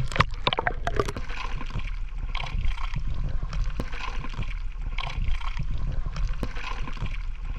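Sea water sloshing and splashing close around a camera at the water's surface as a cast net full of fish is worked through the water, with irregular splashes over a steady low rumble.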